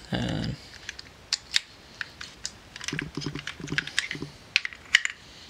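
Scattered small clicks and knocks of plastic and metal as a 35mm film cassette is pressed into a film camera's film chamber and the film is worked onto the spool.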